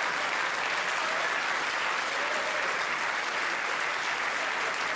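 Large hall audience applauding steadily after a punchline, with some faint voices among the clapping.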